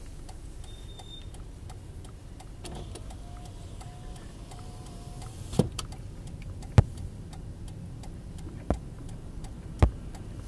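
Car driving downhill, heard from inside the cabin: a steady low road-and-engine rumble, with four sharp knocks at uneven intervals in the second half.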